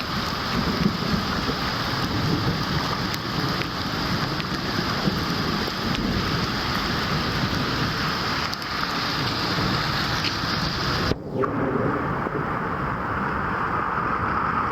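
Steady rain with thunder rumbling low underneath. The sound breaks off abruptly about eleven seconds in and comes back as a duller rain hiss.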